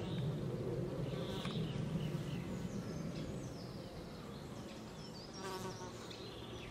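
Flying insects buzzing steadily, with short bird chirps and trills over it, one about a second and a half in and another about five and a half seconds in.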